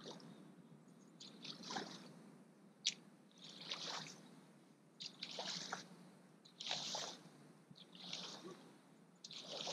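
Faint rake strokes scraping through dry leaves and dead grass: a rustling sweep about every second and a half, with one sharp click about three seconds in.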